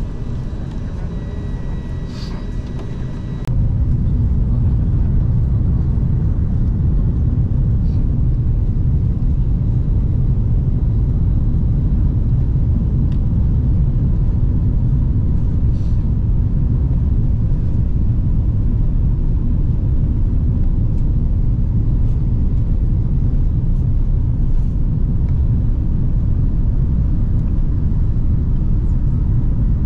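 Steady low rumble of an Airbus A380 heard inside the upper-deck cabin: engine and airflow noise. It steps up sharply and suddenly about three and a half seconds in, then holds level.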